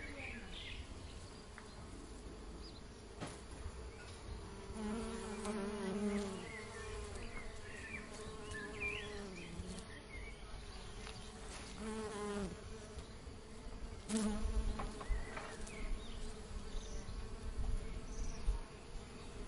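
Honey bees buzzing, with single bees flying close past several times, each passing hum swelling and bending in pitch before fading.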